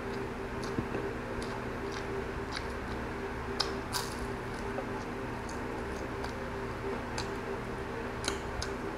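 Close-miked eating: soft wet chewing clicks and smacks, with a sharper crunch about four seconds in as a fried chicken lumpia is bitten. A steady low hum runs underneath.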